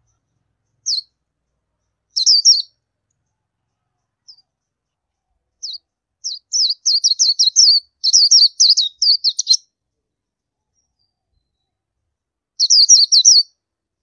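Oriental white-eye calling: high, thin chirps, a scattering of single notes and short bursts, then a rapid twittering run of about three seconds in the middle, and one more quick burst near the end.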